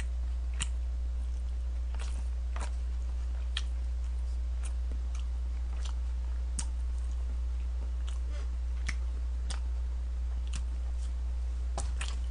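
Close-up chewing of a mouthful of lunchbox food, with scattered short bites and clicks, over a steady low hum.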